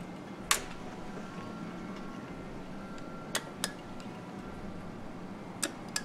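Sharp clicks of switches and a relay on a homemade 24 V DC latching relay circuit as the power is switched back on and the buttons worked: one loud click about half a second in, a pair a little past halfway and another pair near the end. A steady low hum runs underneath.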